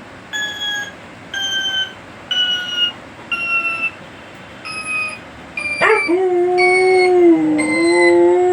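A series of short beeping tones, about one a second, each a step lower in pitch than the last, then from about six seconds in a pet dog howls in one long, steady howl in answer.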